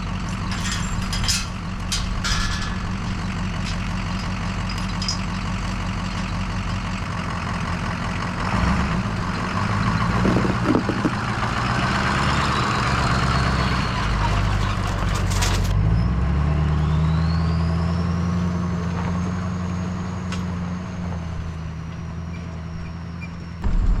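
Ford F-550 dump truck's engine running steadily under a full load of sand, with a few sharp clicks in the first couple of seconds. About two-thirds of the way through the engine note shifts, and a faint high whine rises and then holds.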